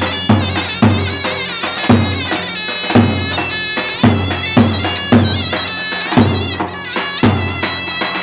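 Davul and zurna playing Turkish folk music: the shrill double-reed zurna plays an ornamented, bending melody over steady davul bass-drum beats, about two strokes a second.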